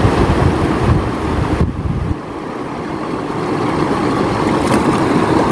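Shallow river running over stones, with wind buffeting the microphone; the low wind rumble eases about two seconds in.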